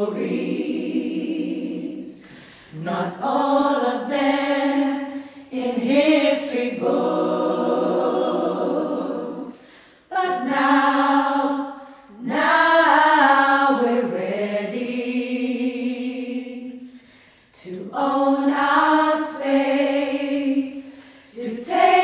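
An a cappella women's choir singing together in several sung phrases with short breaks between them.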